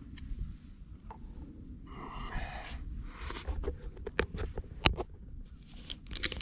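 Scattered small clicks and knocks from handling, with a short rustle about two seconds in and one sharper click near five seconds, over a low steady rumble.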